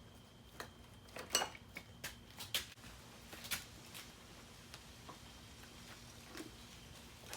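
Scattered metallic clinks and clicks of hand tools and parts being handled while a motorcycle front fork is taken off. The sharpest come in the first four seconds, over a faint steady hum.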